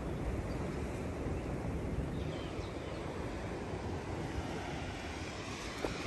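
Sea surf breaking against a rocky shore, heard as a steady low rush without pause.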